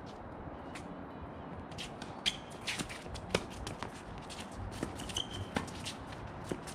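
Tennis rally on a hard court: sharp racket hits and ball bounces starting about two seconds in, several a second at irregular spacing, with players' shoes scuffing on the court.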